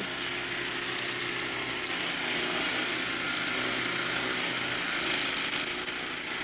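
Snow blower engine running steadily, throwing snow.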